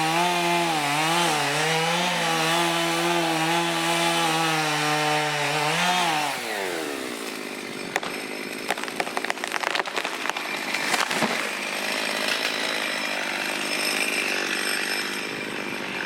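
Chainsaw running at full throttle through a grey willow trunk, its engine note steady, then winding down in pitch about six seconds in. A burst of sharp cracking and snapping follows as the trunk gives way and falls.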